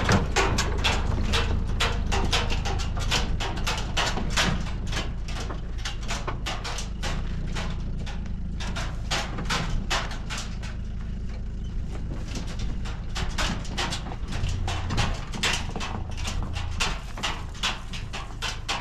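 Pickup truck engine running low and steady as the loaded truck pulls away uphill, growing fainter over the stretch. Close over it, quick crunching steps on stony, gravelly ground.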